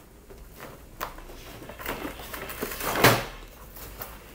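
A few knocks and light clatter from objects being handled against wood, a small one about a second in and the loudest, a solid thump, just after three seconds.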